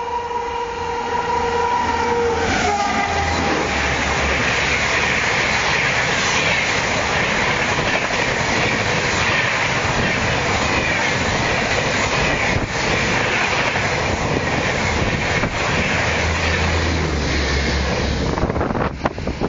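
The horn of the 12301 Howrah Rajdhani Express sounds one steady two-tone note for the first couple of seconds as it approaches. The train then passes close at speed, a loud steady rush of wheels on rails and air that lasts as its coaches go by.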